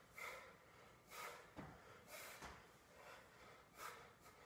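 Faint breaths, four of them about a second apart, from a man straining as he hangs by one arm from a pull-up bar and presses a heavy dumbbell.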